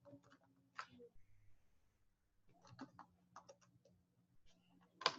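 A few faint, scattered computer keyboard clicks over near silence.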